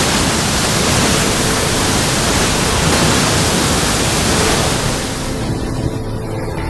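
Loud, steady rushing noise of storm weather. The high hiss falls away abruptly about five seconds in.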